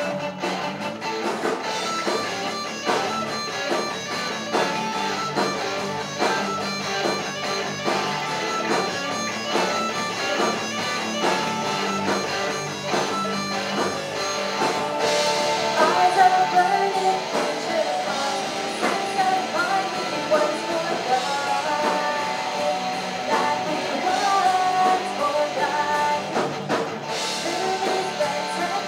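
Live rock band playing: two electric guitars, electric bass and a drum kit, with a woman singing lead. The music briefly gets louder about halfway through.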